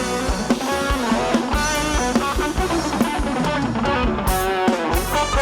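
Live ramwong dance band playing an instrumental passage between sung verses: a guitar melody over a steady drum-kit beat.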